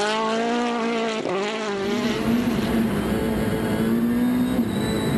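Citroën DS3 WRC rally car's turbocharged 1.6-litre four-cylinder engine revving hard at full throttle as the car goes by. About a second and a half in, the sound changes to the same engine heard from inside the cockpit, running high and steady over a low rumble.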